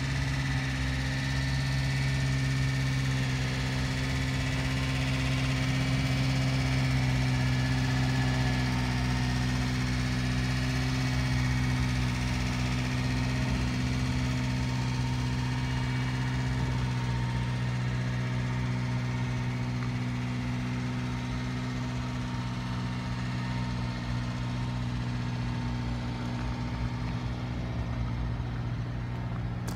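Subaru Sambar kei truck's small 660 cc four-cylinder engine idling steadily, an even low hum.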